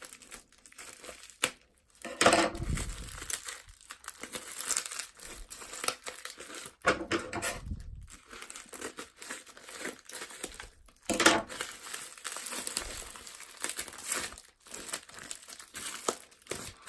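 A taped-up parcel being unwrapped by hand, its wrapping and tape crinkling and tearing in irregular bursts, played fast-forward.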